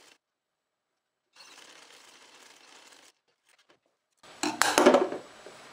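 Sewing machine stitching faintly in short clips broken by dead silence, then a loud clatter of knocks about four and a half seconds in.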